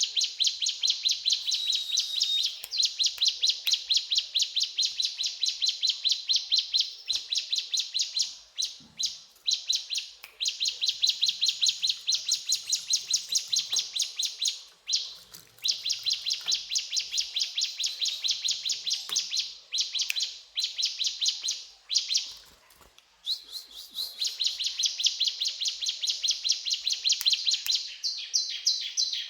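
Ciblek gunung, a prinia, singing long runs of rapid, evenly repeated high-pitched chirps, broken by short pauses.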